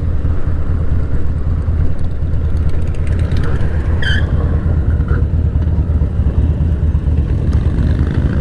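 Harley-Davidson Dyna Fat Bob's V-twin engine running steadily under way, a loud low exhaust throb heard from the rider's seat.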